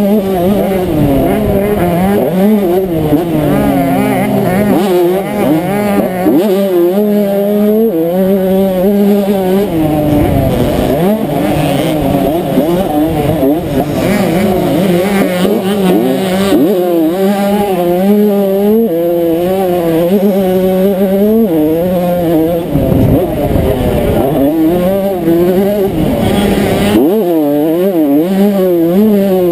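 1992 Honda CR125's two-stroke single-cylinder engine racing, revving up and falling off again and again as the rider works the throttle and shifts gears.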